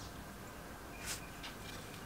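Steel tweezers clicking lightly twice against the aluminium head cover of a vintage air compressor while prying a small valve disc out of its seat, over a low steady hiss.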